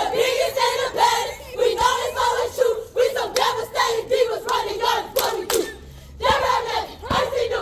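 A group of sorority new members shouting a chant in unison in short rhythmic phrases, with a couple of sharp hits about five seconds in and a brief lull just after.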